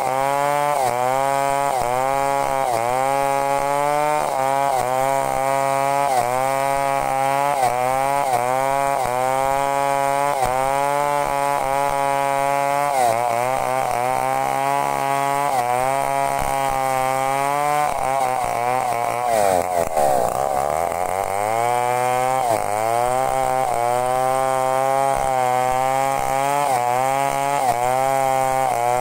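Two-stroke chainsaw ripping a breadfruit (sukun) log lengthwise into planks, running at high revs. The engine pitch dips and recovers about once a second as the chain bites into the wood. About two-thirds of the way through, the pitch falls steeply and climbs back over a few seconds.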